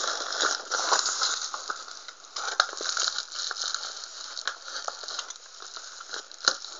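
A plastic courier mailing bag crinkling and crackling as it is handled and cut open with a utility knife, with a few sharper clicks among the rustling.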